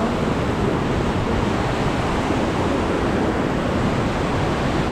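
Fast-flowing mountain river rushing over a rocky bed in a strong current: a steady, even wash of water noise.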